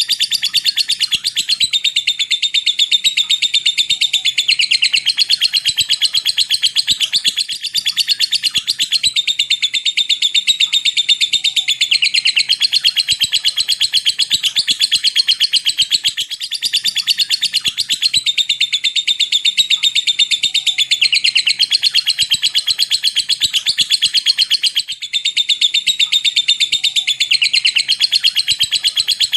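Lovebird singing a long ngekek: a fast, unbroken run of high, chattering notes. The run breaks off briefly about 16 and 25 seconds in.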